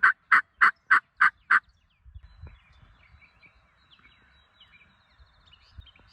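A run of loud, evenly spaced turkey yelps, about three a second, stopping about a second and a half in. Faint songbirds sing in the background afterwards.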